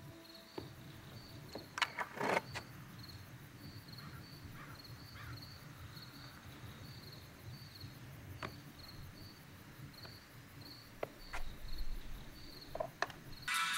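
Skateboard on a concrete skatepark: a few sharp clacks of the board about two seconds in, then wheels rolling and more clacks near the end as it is ridden. Crickets chirp steadily underneath, about twice a second.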